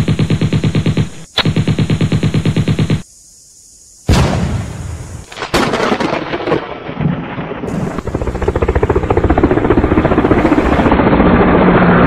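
Machine-gun fire sound effect: two rapid bursts of shots with a brief break between them, then about a second of silence. A blast follows, and then a long stretch of dense, rapid crackling fire that grows louder toward the end.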